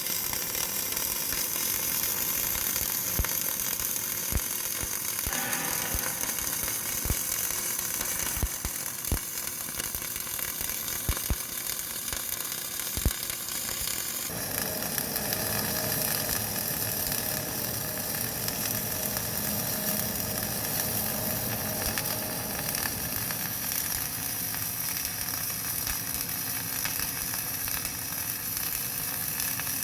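CO2 MIG welding arc sizzling steadily, with scattered sharp pops in the first half; the sound changes character about halfway through.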